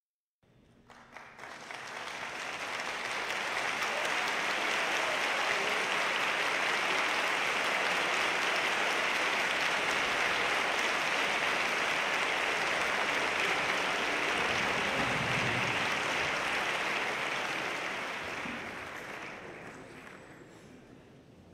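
Theatre audience applauding: the clapping swells over the first few seconds, holds steady, and dies away near the end.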